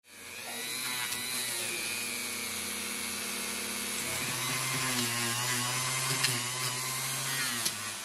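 Handheld rotary tool spinning an abrasive sanding disc against the rusty steel typebars and frame of a Remington typewriter, a steady motor whine over a grinding hiss. The motor's pitch drops about halfway through, and there are a couple of sharp ticks near the end.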